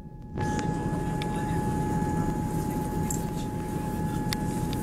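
Passenger train running: a steady rumble with a constant whine and a few sharp clicks. The sound comes back in about half a second in after a brief drop.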